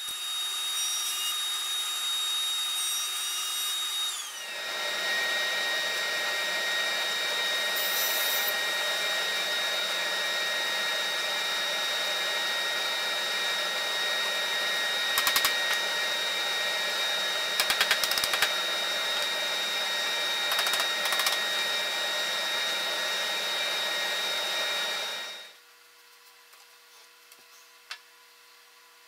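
Table saw running a single dado blade: a steady whir with a high motor whine. About four seconds in, the whine drops in pitch and the rush grows louder and fuller. A few short knocks come in the middle, and the sound stops abruptly near the end.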